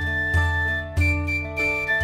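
Background music: a tune of held melody notes over a steady low beat.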